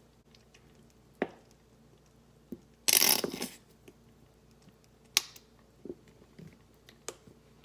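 Honey mustard sauce being added to a pan of béchamel: a short, loud, noisy burst about three seconds in, among a few light clicks and taps of kitchenware.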